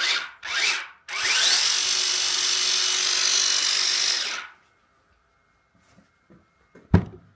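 DeWalt cordless multitool with its hedge trimmer attachment, blipped twice, then run up to speed for about three and a half seconds and released. A sharp knock near the end.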